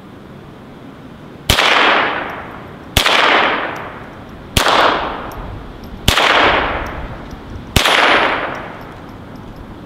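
Ruger Charger .22 LR semi-automatic pistol fired five times at an unhurried pace, about a second and a half apart, each crack trailing off over about a second.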